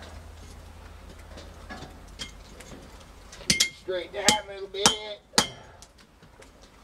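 Hand hammer striking a railroad spike knife blank on an anvil: four blows about half a second apart, starting about three and a half seconds in, each with a ringing clang.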